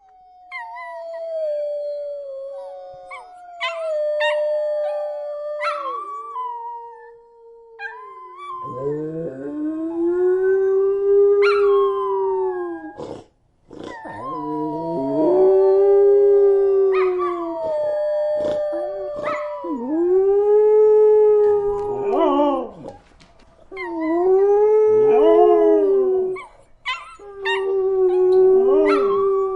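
Wolves howling: one wolf alone at first in long notes that fall in steps, then from about nine seconds in several howl together in long overlapping notes that rise and fall, breaking off briefly a few times.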